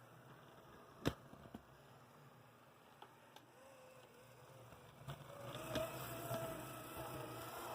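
A sharp click about a second in, then the shell-less AC Gilbert Alco diesel model locomotive's re-motored drive starts running from about five seconds in, a steady whine that grows louder. The motor and drive shafts run smoothly at slow speed.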